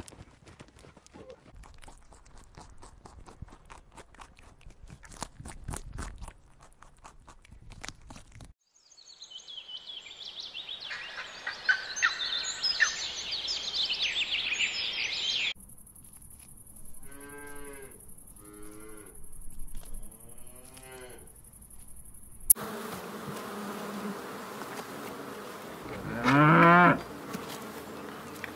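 A run of different animal sounds cut one after another: faint ticking, then high chirping, then three short pitched calls. About 26 seconds in comes one loud, rising moo from cattle, the loudest sound in the stretch.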